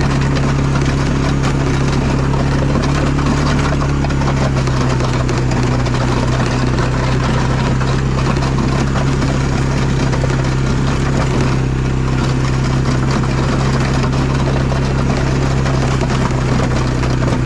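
1999 Honda FourTrax 300 4x4 ATV's single-cylinder four-stroke engine running at a steady speed while the quad drives along and pushes snow with its front plow blade.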